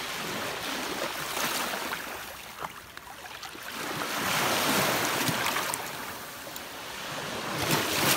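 Small waves washing over the sandy shallows, one swelling louder about halfway through, with a few light knocks.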